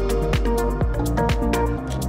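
Background music: an electronic track with a steady beat, low thumps about twice a second under quicker high ticks.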